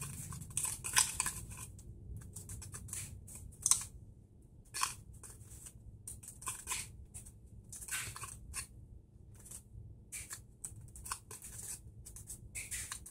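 Small plastic spoon stirring and scraping a wet candy-powder paste in a plastic tray compartment: a run of short, irregular scratchy scrapes.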